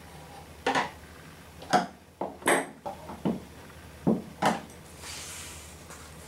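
Metal wrench clinking against nuts and bolts: about eight short sharp clicks as nuts are tightened to clamp a plywood plate onto a plastic cyclone cone, followed by a brief soft hiss near the end.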